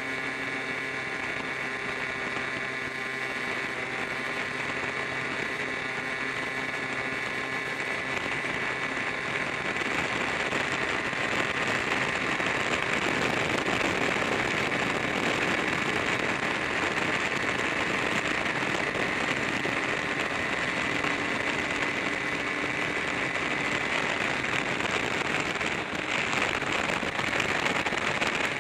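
Wind rush and road noise on a camera riding on a moving motor scooter, over a steady engine drone. The wind noise grows louder about ten seconds in.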